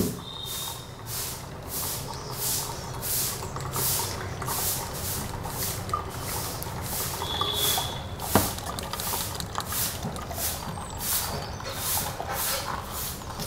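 Rhythmic swishing, about two strokes a second, of a spoon stirring blended spinach-and-tomato pulp in a small mesh strainer so the juice drains through into the jug. A sharp click comes at the start and another about eight seconds in.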